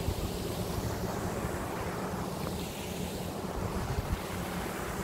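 Wind blowing across the microphone: a steady rushing noise with a low, uneven rumble.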